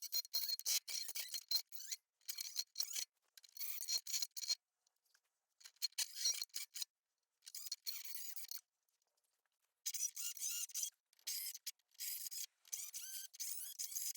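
Rusty steel exhaust pipe at the muffler being scrubbed and scraped by hand to clean the metal before welding: irregular short rasping strokes with brief pauses between them.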